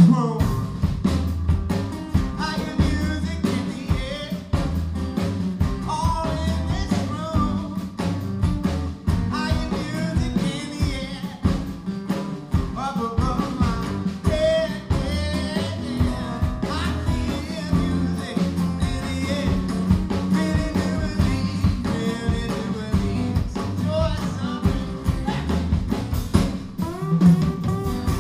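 Live band playing an upbeat gospel song, acoustic guitars strumming under a lead singing voice.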